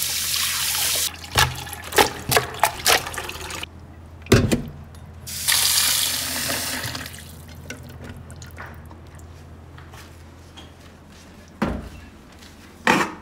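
Tap water running in a stainless steel sink as beef parts are rinsed and water is run into a metal pot of the meat, broken by sharp knocks and clanks of the meat and pot being handled. Near the end come two clanks as the pot is set down.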